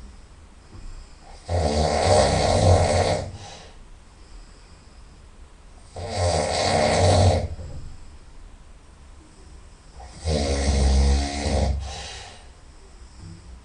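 A sleeping person's very loud nasal snoring: three long snores of about a second and a half each, roughly four seconds apart, with quieter breaths between them.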